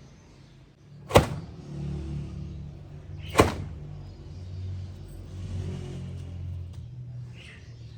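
Two sharp knocks about two seconds apart, over a low steady hum.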